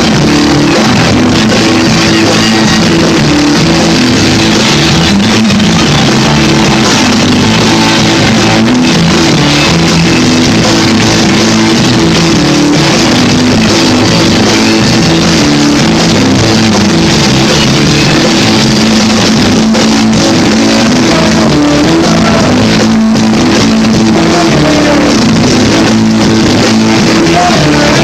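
Loud rock music, dense and continuous, with guitar and a steady low bass line. A few sliding guitar notes come near the end.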